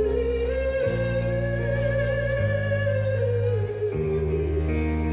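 Live pop-rock band music: a long held lead melody note with vibrato over bass notes that change every second or so.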